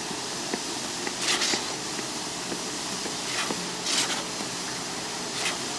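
Concrete pump running with a steady mechanical drone, broken by short hissing swishes three times.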